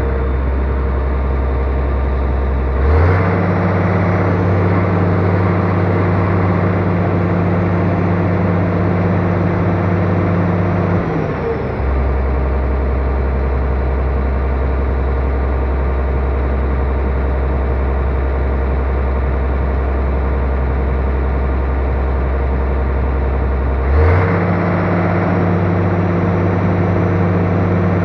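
Hydraulic excavator's diesel engine running steadily. It steps up to higher revs about three seconds in, settles back to a lower speed near the middle, and revs up again a few seconds before the end.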